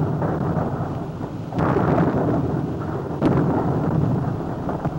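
Loud, thunder-like rumbling noise that swells in surges. A new surge starts suddenly about a second and a half in and again just past three seconds, and each dies away.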